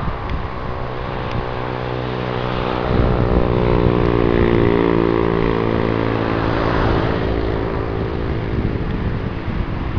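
Airbus A318 jet engines running at high power as the airliner rolls along the runway: a whine of many stacked tones over a rumble, growing louder about three seconds in and dropping slightly in pitch as it passes. Wind buffets the microphone.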